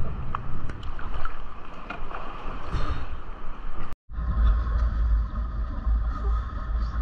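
Sounds on a small boat: water noise with scattered knocks, then after an abrupt cut about four seconds in, a boat engine running with a steady low rumble and a faint whine.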